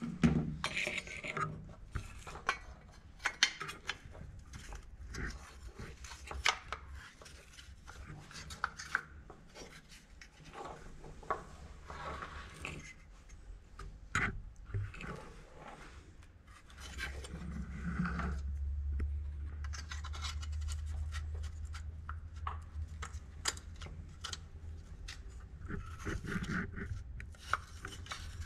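Scattered clicks, taps and rubbing as a headlight is handled and fitted into a metal headlight bucket on a wooden workbench. A low hum joins about two thirds of the way in.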